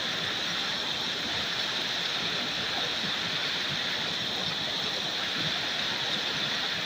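Swollen, muddy river rushing fast over rocks: a steady, even rush of water with no break.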